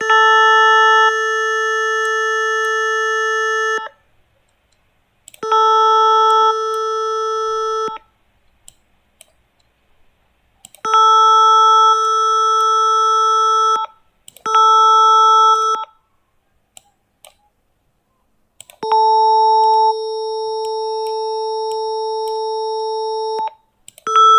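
Synthetic electronic tone generated in Adobe Audition: a steady pitch near 440 Hz with a ladder of overtones, played six times in blocks of one and a half to four and a half seconds with short silences between them.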